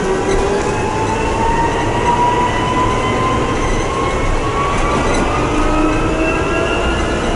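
Trolleybus electric traction motor whining as the bus picks up speed, the whine rising steadily in pitch over a constant road and tyre rumble, heard from inside the passenger cabin.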